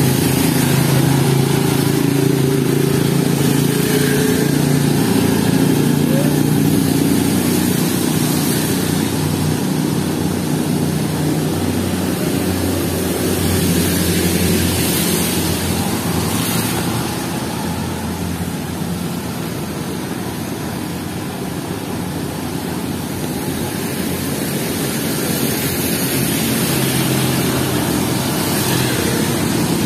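Steady heavy rain, with vehicle engines passing on the wet road and tyres hissing through water. A low engine hum is strongest for about the first ten seconds, then eases, and the sound swells again near the end.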